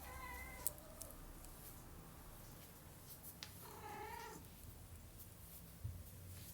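Domestic cat meowing twice, two short calls, one at the start and one a little past the middle, with a low steady purr underneath.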